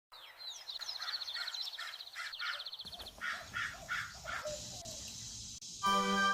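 Birds calling: a run of short, harsh calls about three a second, with a fast high trill over them for the first three seconds. Music begins near the end.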